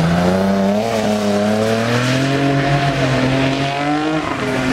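Drift car engine held at high revs through a slide, its note climbing slowly and then dipping a little about four seconds in, over tyre squeal.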